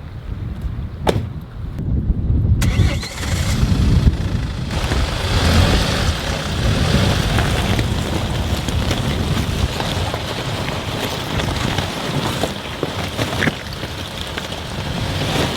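Strong wind gusting against the microphone: a heavy low buffeting rumble, joined about two and a half seconds in by a loud rushing gust that holds until near the end.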